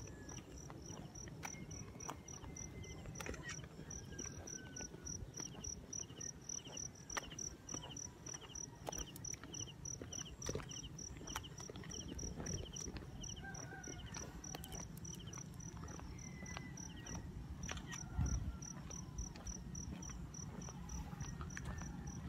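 Crickets chirping steadily over rice paddies: a high, even chirp about three times a second, with a second, lower insect trilling in short runs. Underneath is a low rumble and scattered clicks of walking with a hand-held phone.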